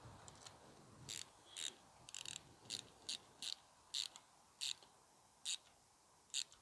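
Plastic cable tie being pulled tight in short tugs, each tug a brief ratcheting zip; about ten of them, coming more slowly toward the end as the tie closes up on the wiring.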